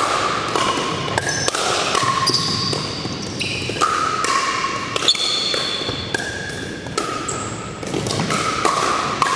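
Pickleball paddles striking plastic balls and balls bouncing on a hardwood gym floor, a steady stream of sharp hollow pocks, about two a second, from several courts at once, each with a short ring and a hall echo.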